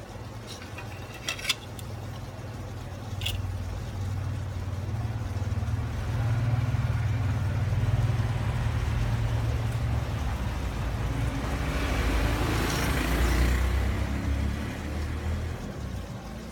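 A low engine-like rumble that builds, holds and then fades away, with a few sharp clicks about a second in and again near three seconds.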